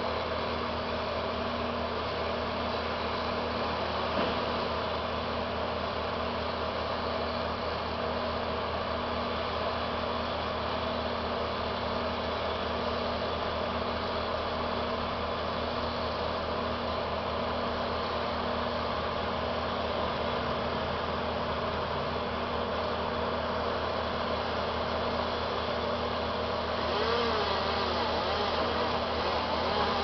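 Tree-removal machinery engine idling steadily, a constant hum with a steady tone, a little louder near the end.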